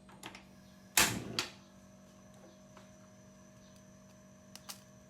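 A sharp loud knock about a second in, followed quickly by a second one, with a few light clicks before and near the end, over a faint steady hum.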